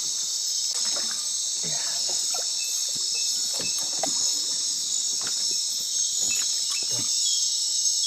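Dense night chorus of insects such as crickets and katydids: a continuous high shrill that holds steady, with faint scattered clicks and knocks beneath it.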